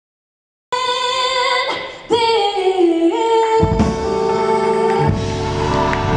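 Live gospel song: a female lead voice sings long held, sliding notes with background singers, and about halfway through the band comes in underneath with bass and drums. It opens with a brief dead-silent gap where the recording cuts.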